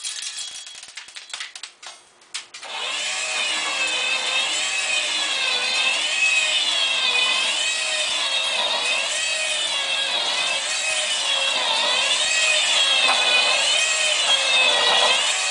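Small 12-volt electric motor driving the drum of a stainless steel model cement mixer. It starts about two and a half seconds in, after a few clicks and rattles, and runs on as a steady whine that wavers up and down in pitch over and over.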